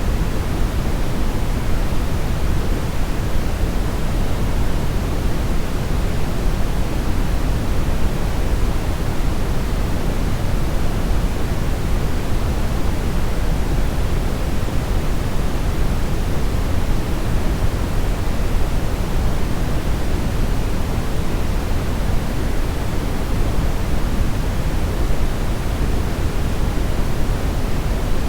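Steady synthetic brownish noise: an even, unchanging hiss weighted towards the low end, with a deep rumble and softer highs.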